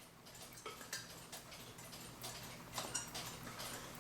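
Irregular light clicks and taps of small clock-movement parts being handled, over a faint steady low hum.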